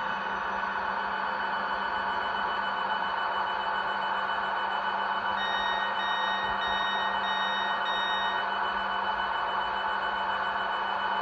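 Sound decoder of an OO gauge Class 395 Javelin model playing the standing electric train's steady electrical hum. About halfway through comes a run of five quick electronic beeps, the door warning of a train stopped at a platform.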